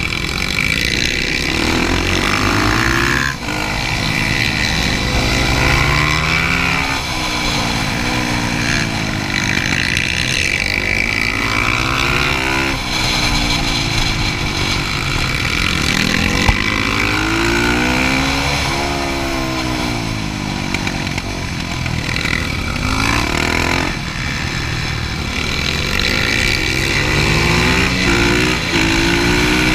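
KTM 450 SMR supermoto's single-cylinder four-stroke engine at race pace, its pitch rising repeatedly as it accelerates through the gears and dropping off under braking into corners.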